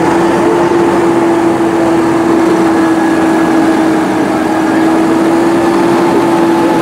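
Valtra tractor's diesel engine running at a steady, unchanging pitch as the tractor drives slowly past.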